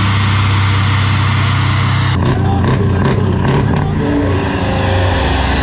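Heavy truck diesel engine revved hard while blowing black smoke: a loud, steady drone. About two seconds in, the sound cuts to a man yelling, with an engine still running beneath him.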